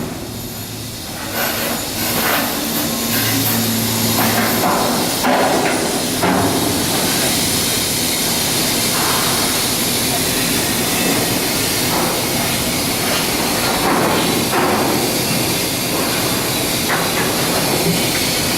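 Shipyard work noise: a steady loud hiss of tools and machinery with scattered short knocks, and a brief low hum about three seconds in.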